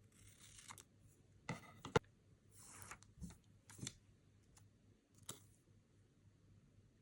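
Quiet sticker-collage handiwork with paper and sticker sheets. Short, scattered papery swishes and rustles mix with a few light clicks and taps, the sharpest click about two seconds in.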